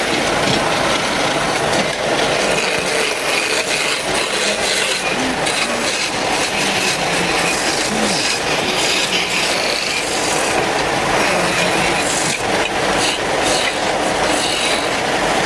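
A hand or power tool working wood, making a continuous dense scraping noise with fine ticks running through it.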